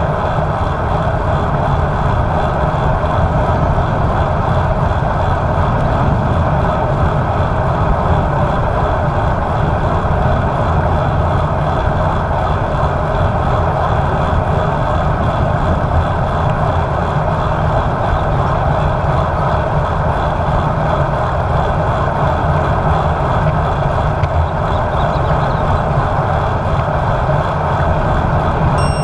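Steady wind noise buffeting a bike-mounted action camera's microphone, with tyre and road rumble from a road bike being ridden.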